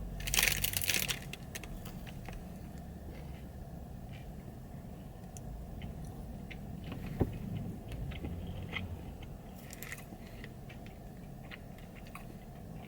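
A bite into a chocolate-coated protein bar with crunchy bits, a short crunch about a quarter of a second in, followed by faint chewing with scattered small crackles and clicks.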